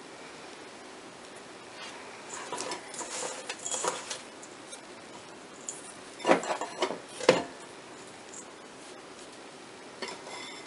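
Hands scooping and packing dry, crumbly bath bomb mixture into a plastic mold half over a stainless steel mixing bowl: soft rustling and scraping, with two sharper knocks or scrapes about six and seven seconds in.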